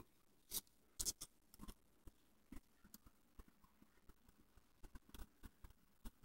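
Faint, scattered clicks and rustles of hands handling slices of sprouted whole wheat bread, with a small cluster of clicks about a second in.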